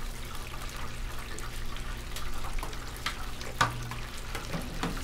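Battered rock shrimp tempura deep-frying in very hot oil: a steady sizzle scattered with small pops and crackles, with one sharper click about three and a half seconds in, over a steady low hum.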